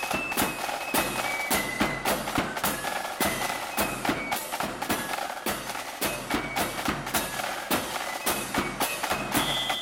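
Marching flute band playing a march: high flutes carry the melody over a steady beat of bass drum and clashed hand cymbals, ending on a held high note.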